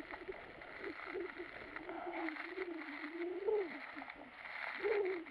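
Crinkling and rustling of a food parcel being wrapped tightly by hand. Under it runs a continuous low wavering tone that rises in pitch a few times.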